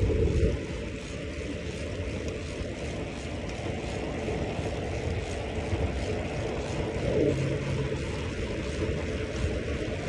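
Wind and road noise from riding a bicycle at speed: a steady rumbling rush over the microphone that drops somewhat about half a second in.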